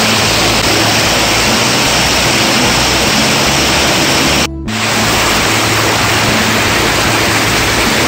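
Mountain stream water rushing over small waterfalls into a rock pool, a loud steady roar of white water, with background music underneath. The sound cuts out briefly about four and a half seconds in.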